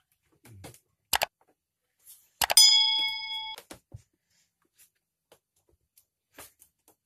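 Two sharp clicks, the second followed at once by a bright bell-like ding that rings and dies away over about a second: the click-and-bell sound effect of a like-and-subscribe button animation. Faint small ticks follow.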